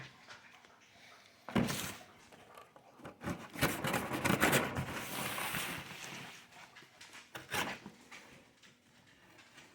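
A cardboard shipping box being opened by hand: a knock about a second and a half in, then a few seconds of scraping and rustling of cardboard and packing, and a couple of lighter knocks.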